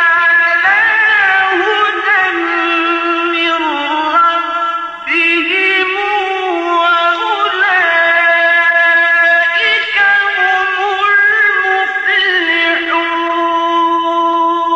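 A male Quran reciter chanting in tajweed style, holding long high notes with bending melismatic ornaments and breaking briefly for breath about five seconds in.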